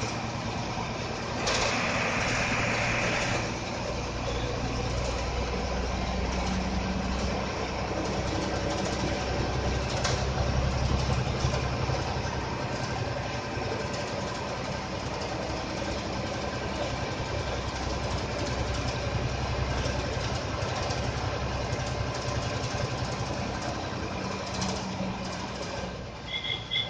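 APSRTC bus engine running steadily with road noise, heard from inside the bus cabin, with a brief hiss about two seconds in.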